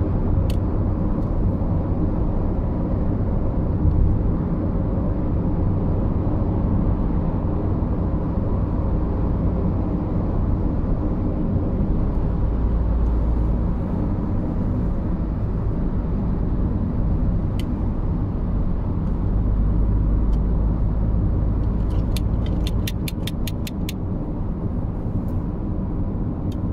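Steady road and engine rumble inside the cabin of a moving car, with a short run of quick faint clicks near the end.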